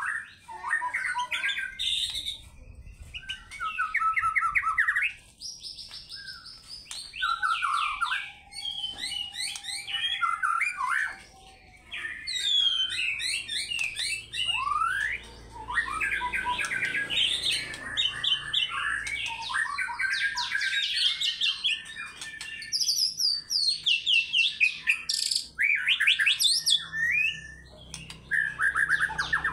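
White-rumped shama singing a long, varied song of clear whistles and fast rattling trills, phrase after phrase with short pauses between.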